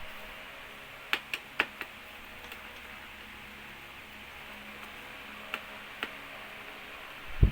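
A few light clicks of small screws and a screwdriver being handled, three close together about a second in and two more later, over a faint steady hiss, with a louder knock near the end.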